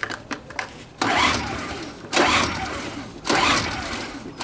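Recoil pull-starter on a Parkside PGI 1200 B2 inverter generator's small four-stroke engine, pulled three times about a second apart on choke. Each pull is a sudden whirr of cord and cranking engine that falls in pitch and fades without the engine catching. Light clicks come first as the starter handle is gripped.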